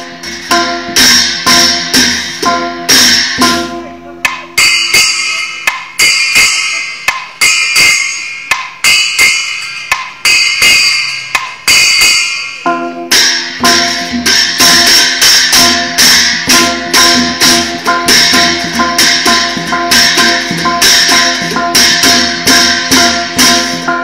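Traditional Shan dance music: a steady percussion beat under a melodic line. From about 4 seconds in to about 13 seconds the melody falls away and mostly percussion is left, then the full music comes back.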